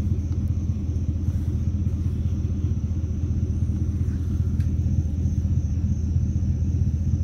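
Steady low rumble of the Chevy Silverado pickup's engine idling, with a faint steady high whine above it.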